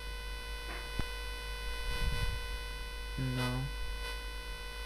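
Steady electronic buzz made of many held tones, with a single click about a second in; a man says "Now" near the end.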